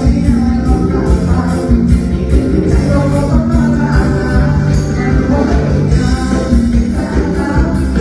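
A song playing loud, a voice singing over instruments with a steady beat.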